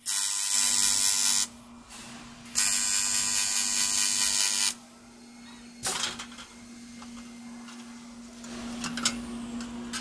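Automatic air-vent frame welding machine's torch arc firing twice, a hiss with a buzz, about one and a half and two seconds long, over a steady low machine hum. A sharp clack about six seconds in and light clicks near the end as the frame is handled.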